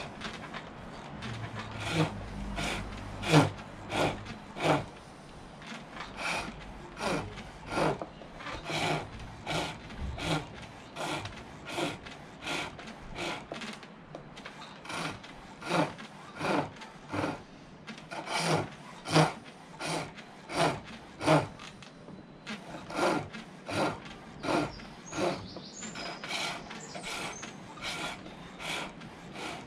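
Silver birch being turned on a foot-powered pole lathe: the turning tool bites the spinning wood in short, rhythmic scraping cuts, about one and a half a second, one cut for each treadle down-stroke.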